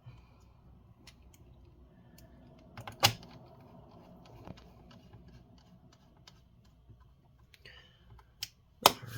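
A few sharp clicks and light knocks from a plastic laptop being handled on a bench, with a loud click about three seconds in and another near the end, the rest quiet.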